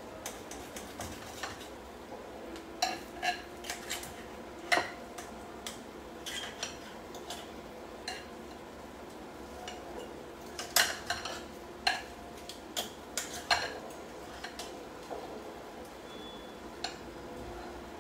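Cutlery clinking and knocking against dishes and pans while food is served onto a plate: scattered light clicks, with a cluster of sharper clinks a little past the middle.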